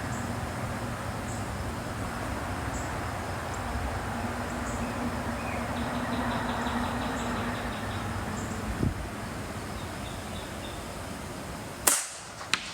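An air pistol fires once near the end: a sharp crack, followed about half a second later by a smaller snap. Before the shot there is only a steady outdoor background hiss, with a faint click about two-thirds of the way through.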